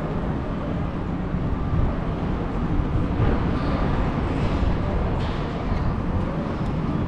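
Steady low rumble of outdoor ambience, even in level throughout.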